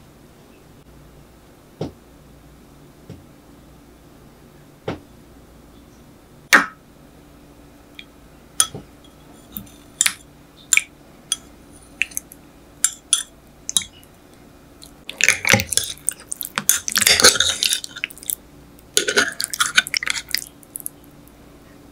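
A metal teaspoon in a glass tumbler breaking up set coffee jelly: about a dozen separate light clinks of the spoon against the glass, then two longer, denser spells of clinking and wet stirring as the jelly is broken into pieces.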